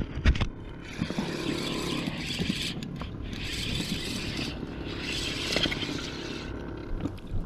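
Rustling and scraping handling noise close to the camera, with a few sharp knocks at the start as a hand brushes over the camera.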